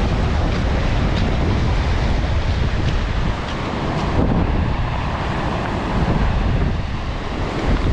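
Strong wind buffeting the microphone with a heavy low rumble, over the steady wash of breaking sea waves.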